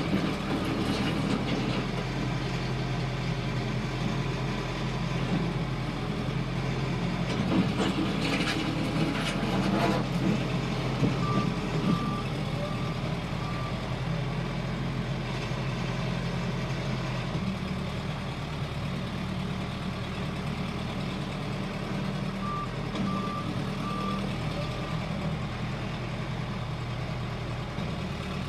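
Case 580L backhoe's diesel engine running steadily, with its reverse alarm beeping in two short runs of about four beeps each, once near the middle and again near the end.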